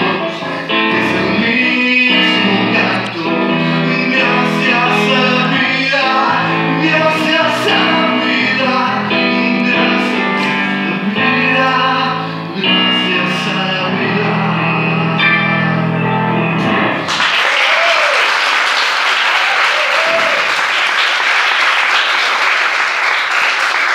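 A man singing a slow song to electric keyboard accompaniment; the music ends about two thirds of the way in and an audience breaks into applause.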